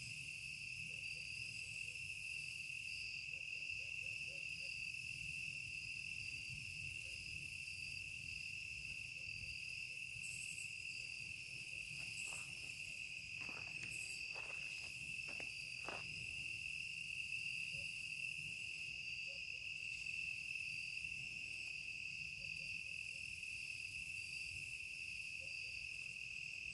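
Steady outdoor chorus of crickets and other insects trilling, with a few faint clicks about halfway through.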